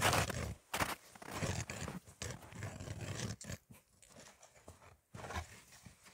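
Hand-cranked ice auger boring through lake ice, its blades scraping and crunching in uneven strokes.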